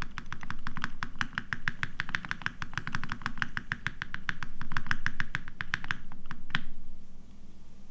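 Fast typing on a custom TX1800 mechanical keyboard with lubed Mauve switches, a polycarbonate plate and Cherry doubleshot keycaps: a quick, steady run of key strikes that stops about six and a half seconds in, ending on one louder stroke.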